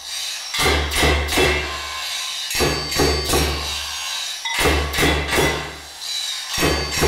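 Percussion played with hammers and tools in a rhythmic pattern: a group of about three sharp strikes with a ringing edge, over a deep low note, repeating every two seconds.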